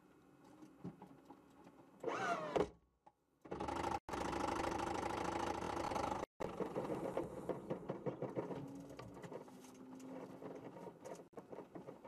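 Toyota TS040 Hybrid race car's drivetrain whirring as the stranded car tries to get moving. A short whine rises and falls about two seconds in, then a loud, even run of about three seconds cuts off abruptly, and a quieter rattling runs on and fades.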